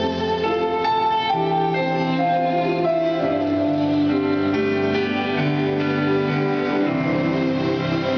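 Slow instrumental music, the free-skate programme music, with held notes and chords that change every second or so.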